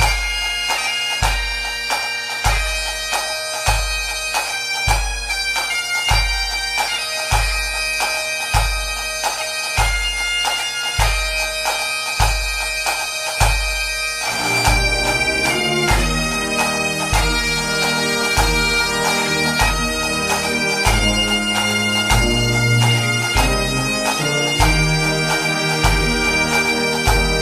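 Bagpipe music over a slow, steady deep drum beat, with a fuller bass part coming in about halfway through.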